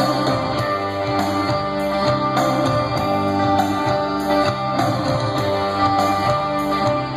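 Guitar-led music with a steady beat, playing from an FM radio station through the Hyundai i30's factory car stereo speakers.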